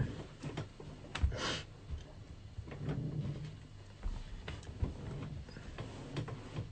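Faint scattered clicks and light knocks, with one short breathy rush about a second and a half in.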